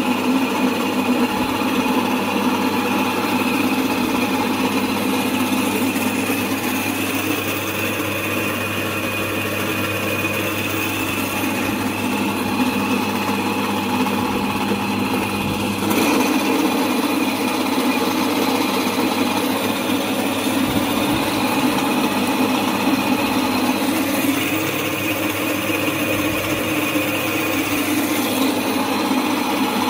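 Baba domestic flour mill (atta chakki) running steadily, its electric motor humming as it grinds wheat into flour, working again after repair. The hum gets a little louder about halfway through.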